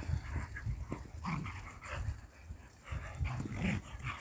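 A red kelpie and a border collie play-fighting, making short, scattered dog vocal sounds.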